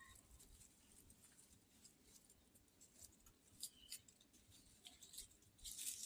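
Faint rustling and light scattered clicks of plants and soil being handled, with a louder rustle building near the end.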